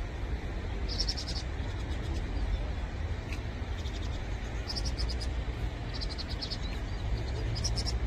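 Vinous-throated parrotbills calling: four short bursts of rapid, high chattering notes, a second or more apart, over a steady low rumble.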